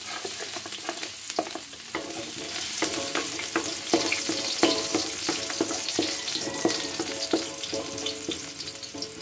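Chopped garlic sizzling in hot oil in a wok as it is sautéed, with a spatula scraping and knocking against the metal pan while it is stirred. The wok rings briefly after the harder knocks.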